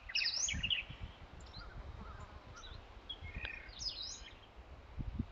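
Outdoor ambience with small birds chirping now and then, short high calls scattered throughout, over a faint low rumble that swells near the start and again about five seconds in.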